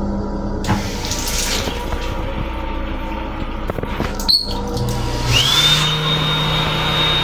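A short run of water from a train-restroom sink faucet, then a click and a small electric motor that spins up quickly to a steady high whine with a low hum beneath it. The train's steady rumble runs underneath.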